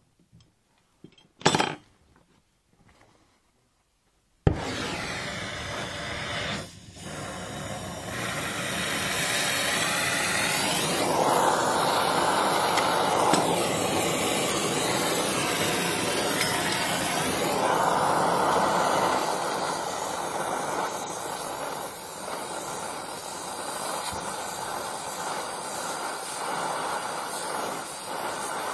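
Donmet 132A micro gas-welding torch flame hissing steadily while welding a steel heating pipe. It starts suddenly about four and a half seconds in, after near silence broken by one short sharp sound.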